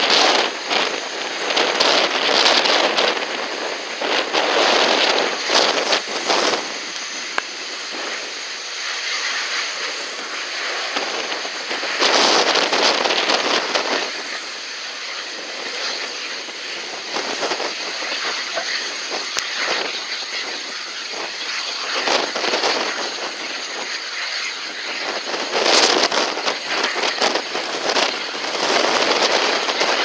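Strong wind gusting across the microphone, rushing in waves, over the steady engine noise of an Airbus A380 taxiing at low thrust.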